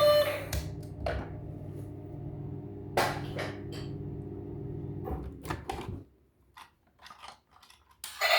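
Scattered sharp clicks and knocks of plastic toys and packaging being handled, over a steady low hum that stops about six seconds in.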